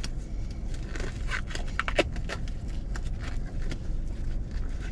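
Scattered crinkles, rustles and small clicks from a glove and a plastic-wrapped foam food tray being handled, over a steady low hum inside a car's cabin.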